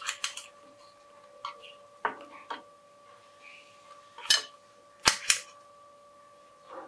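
Kitchen knife chopping a water lily stem into pieces on a cutting board: sharp single chops at irregular intervals, some in quick pairs. A faint steady hum runs underneath.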